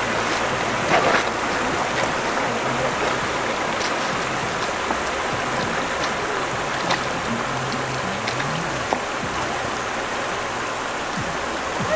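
Steady rush of running stream water, with a few sharp clicks from stones underfoot.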